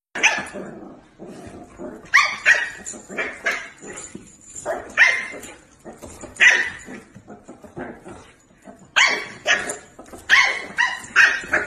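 A dog barking in short, sharp barks that come two to four at a time, in repeated bunches.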